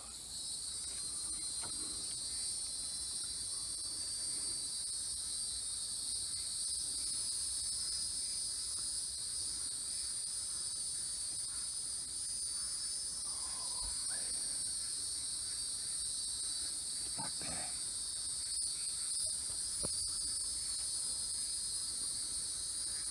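Insect chorus: a steady, high-pitched shrilling drone in several layers, unbroken throughout.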